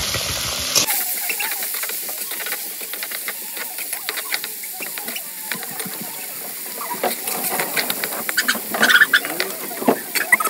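Whole small prawns frying in hot oil in a wok: steady sizzling with crackles and pops that grow louder and more frequent toward the end.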